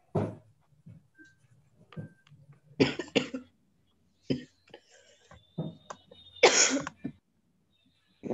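Someone coughing over a video-call microphone: a quick double cough about three seconds in and a longer cough about two-thirds of the way through, among a few other short knocks and rustles.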